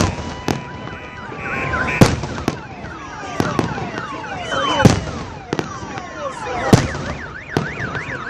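Fireworks display: sharp bangs, the loudest about two, five and seven seconds in, among many whistles falling in pitch. In the last couple of seconds a car alarm warbles rapidly up and down.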